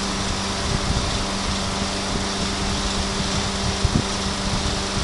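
Steady mechanical drone of foundry machinery, an even fan-like whoosh with a constant low hum, and a small knock about four seconds in.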